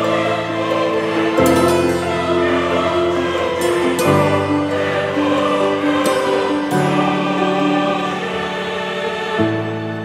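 Background music: slow, sustained chords that change every two to three seconds.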